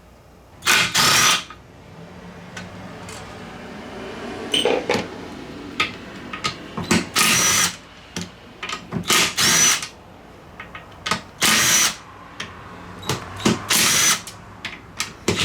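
A power tool run in about five short bursts, each half a second to a second long, with light clicks and clatter between them.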